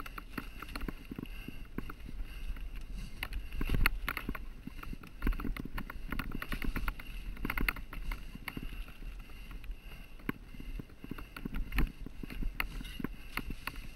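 Mountain bike riding fast down rocky, wet singletrack: tyres rumbling over stones and mud while the bike rattles and knocks over the bumps. The hardest knocks come about four seconds in and again near the end.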